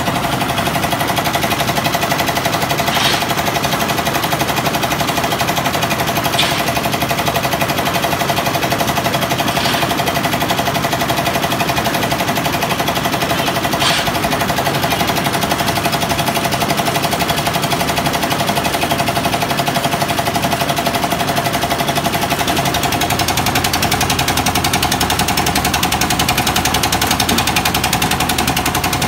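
A concrete mixer with a skip hoist running steadily: its engine knocks rapidly and evenly, with a steady whine. A few sharp metallic knocks come through in the first half.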